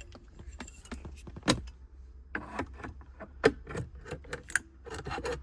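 Irregular metallic clinks, rattles and knocks of shifter parts and nut-and-bolt hardware being handled and fitted into the car, with two sharper knocks about one and a half and three and a half seconds in, over a low steady hum.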